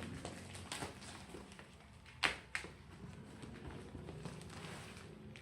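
A cardboard product box being opened and handled: scattered taps, knocks and scrapes, with a sharp knock about two seconds in and another just after.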